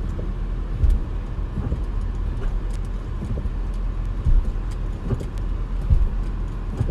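2005 Honda Accord running in drive, with a steady low engine hum and about six irregular low clunks from the front suspension as the car shifts. The clunking is traced to worn lower control arm bushings.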